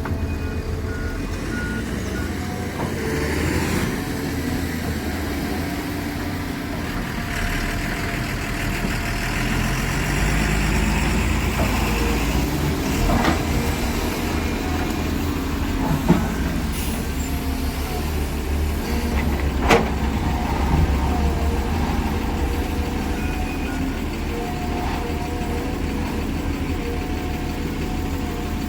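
Heavy diesel earthmoving machinery, an excavator loading a dump truck, running steadily with its engine note rising and falling as it works. Short evenly spaced warning beeps sound at the very start, and three sharp knocks come in the second half.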